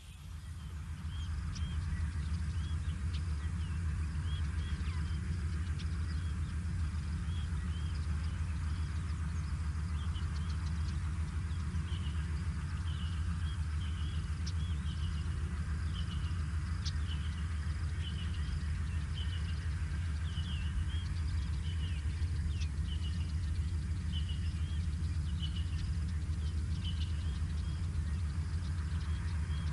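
Many short, high bird chirps repeating irregularly over a steady low rumble, which comes up during the first couple of seconds and is the loudest sound.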